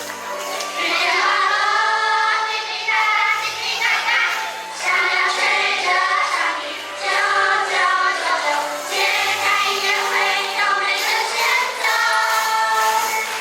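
A group of voices singing a song together in phrases over instrumental accompaniment.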